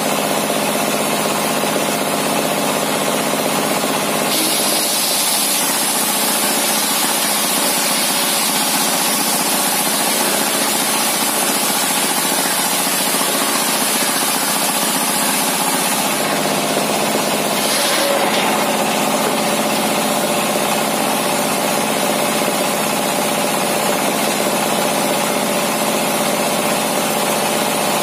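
Single-cylinder diesel engine running steadily, driving a homemade table circular saw. From about four seconds in until about sixteen seconds the blade rips a large timber plank, adding a high hiss over the engine. There is a short clunk a little after halfway.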